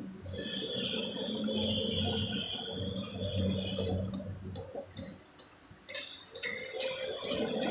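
Arc welding on steel: a steady hissing crackle with sharp ticks about two or three times a second. Near the end it turns into a louder, brighter hiss.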